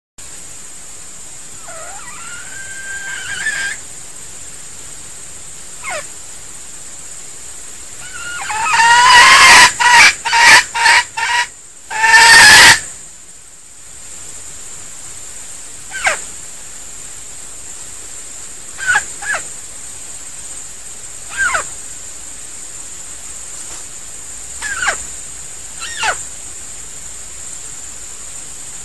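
Red junglefowl rooster calling: one loud crow about nine seconds in, broken into several quick syllables, and before and after it a handful of short, sharp, downward-sliding calls a few seconds apart. A steady high-pitched hiss runs underneath.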